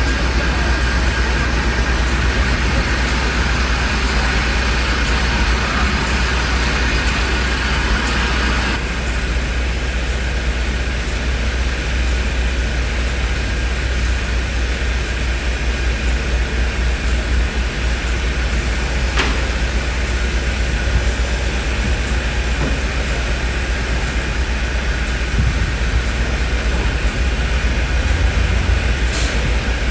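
Heavy engine running steadily at a construction site, a constant low rumble under street and site noise. The higher hiss drops away about nine seconds in, and a couple of faint clicks follow later.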